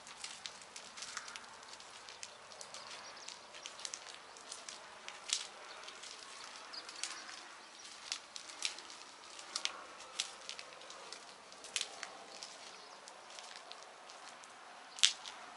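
Rainwater dripping and pattering: irregular light ticks over a faint steady hiss, with a sharper tick about five seconds in and the loudest one near the end.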